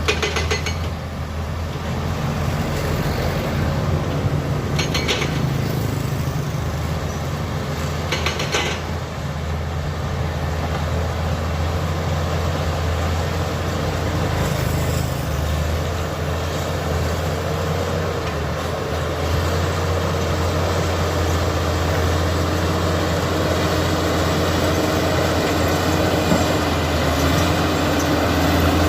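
Komatsu D85E-SS crawler bulldozer's diesel engine running steadily with a deep drone. Three short metallic clanks come in the first nine seconds, and a faint whine joins about halfway.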